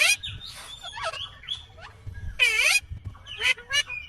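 Indian ringneck parakeet (rose-ringed parakeet) calling: a run of short calls, the loudest about two and a half seconds in, with shorter calls before and after it.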